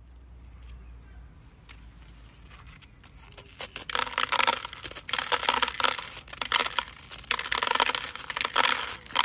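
Irregular crackling and rustling, like something being crumpled or torn, starting about three and a half seconds in after a faint low hum.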